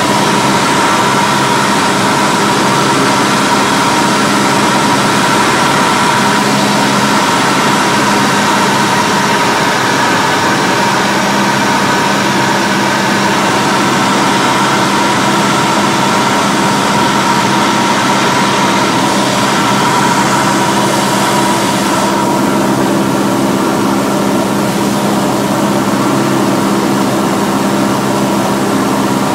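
Cessna 172's single piston engine, upgraded to 180 hp, and its propeller running steadily, heard inside the cockpit as a constant drone with rushing wind noise, on an instrument approach to landing.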